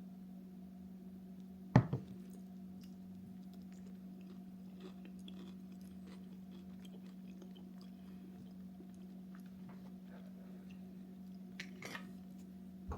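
Someone chewing a mouthful of cashew butter mixed with crispy rice cereal, with faint small crunches throughout. A sharp knock sounds just under two seconds in, and softer ones near the end. A steady low hum runs underneath.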